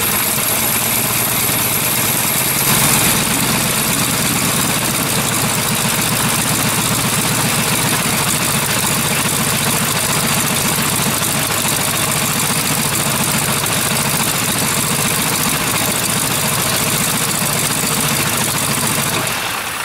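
Jacobs R-755-9 seven-cylinder radial aircraft engine running steadily on its first start, turning a wooden test club propeller.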